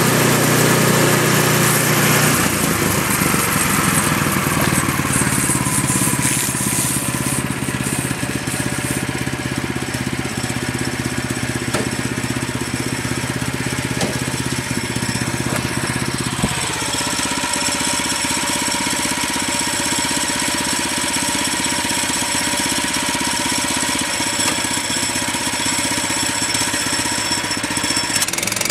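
Gas engine of a Woodland Mills portable bandsaw mill running steadily under load as the band blade saws a slab off the top of an oak log. The engine's lower note shifts a little past halfway through.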